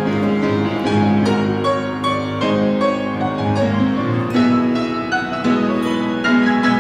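Piano playing a flowing passage of struck, sustained notes, with no singing.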